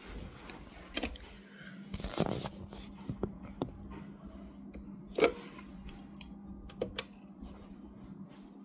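Scattered clicks and knocks of handling as a corded hotel-room desk telephone is picked up and dialled, with the loudest knock about halfway through and two quick clicks a little later, over a steady low hum.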